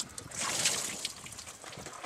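Engine coolant trickling and splashing from a radiator hose just pulled off the 3.8 L V6, a short hissing dribble that fades.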